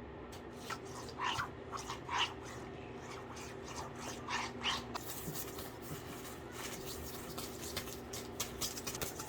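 Small clicks and taps of food preparation over a steady low hum, with a few short squeaky sounds about one, two and four and a half seconds in.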